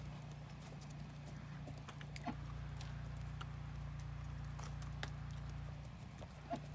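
A hen pecking at pumpkin pieces on snow: scattered light taps at irregular intervals, over a steady low hum.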